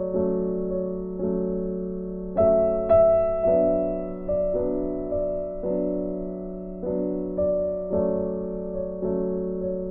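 Background music: a slow, gentle keyboard melody over a held low note, with notes struck roughly every half second to a second and each left to ring and fade.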